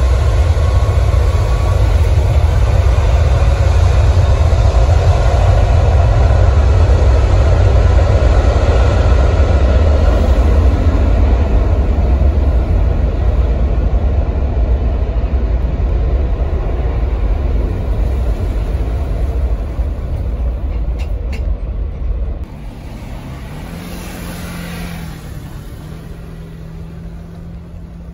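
Jet engines of an Air China twin-engine airliner on its landing roll: a loud roar over a deep rumble that slowly fades as the plane rolls away down the runway. About 22 seconds in the deep rumble drops off suddenly, leaving a quieter, steady hum.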